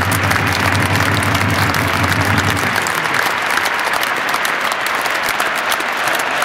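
A large stadium crowd applauding: dense, continuous clapping from the stands. A low hum underneath cuts off about three seconds in.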